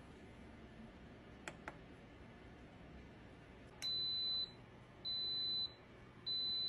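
Instant Pot Duo electric pressure cooker beeping three times, each a long steady high beep of a little over half a second, starting about four seconds in, after two faint clicks. Three beeps like this are the cooker's signal that the pressure-cook program has started.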